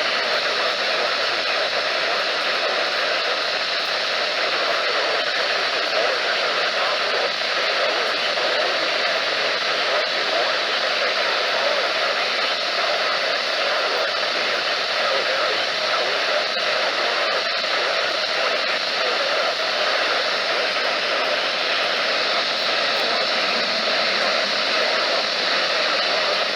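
Steady, even hiss of radio static from a NOAA Weather Radio receiver's speaker.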